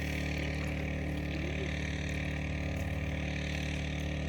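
An engine running steadily with a low, even hum that does not change in pitch.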